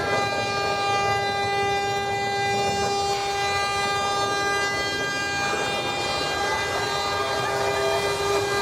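A long, steady horn blast held on one pitch with many overtones, sounding over a constant rushing noise from the canyon's special effects. The loudness swells near the end as a flood of water pours down the rocks.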